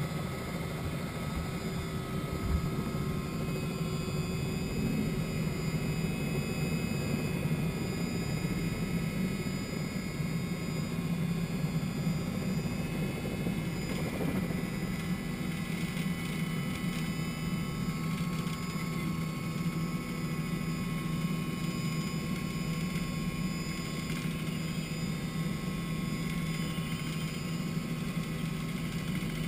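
Helicopter engine and rotor running at a steady pitch during lift-off and climb-out, heard from inside the cabin.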